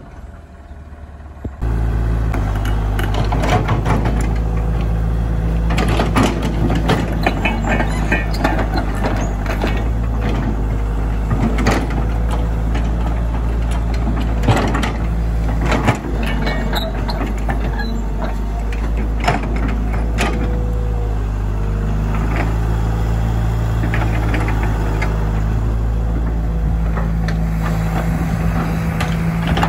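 Caterpillar hydraulic excavator's diesel engine running steadily, with many sharp clanks and knocks over it. The engine sound comes in suddenly about a second and a half in.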